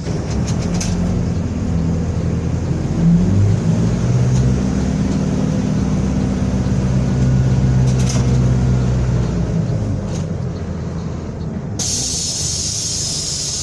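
Mercedes-Benz OF-1721 bus's diesel engine pulling under load, its pitch stepping up about three seconds in and then holding a steady drone, with the growl of a worn differential. Near the end a loud burst of compressed-air hiss from the bus's air system.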